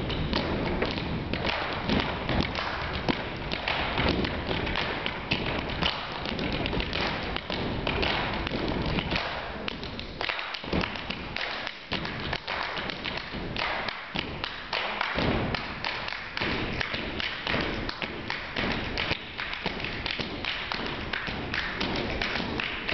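A troupe's feet stomping and hands clapping in rhythm on a wooden stage: a body-percussion routine, with many quick thuds and taps.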